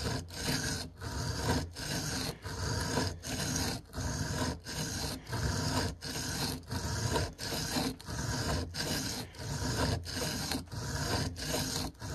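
Steel knife blade, the M4 edge of a Spyderco PM2 tanto, scraped back and forth on a wet diamond sharpening plate, a rhythmic rasp of about three strokes every two seconds. The strokes grind the edge bevel at the heel, tight against the plunge grind, running straight and then at an angle.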